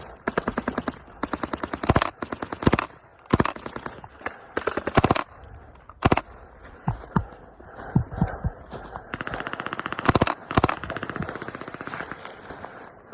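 Hardball replica guns firing on automatic. There are several short, rapid bursts, a longer burst about nine seconds in, and scattered single shots in between.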